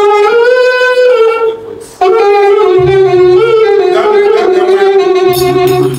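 A horn blown in two long, loud held notes with a slightly wavering pitch: the first lasts about two seconds, the second, after a brief break, runs about four seconds.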